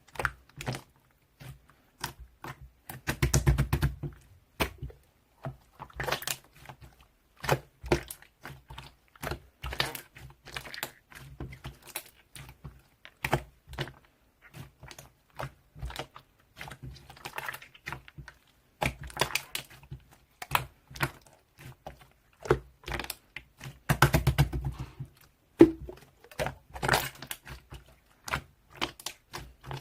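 Slime being squeezed and poked by hand, making irregular sticky clicks and pops, with two denser, louder runs of squishing, a little after three seconds in and again about twenty-four seconds in.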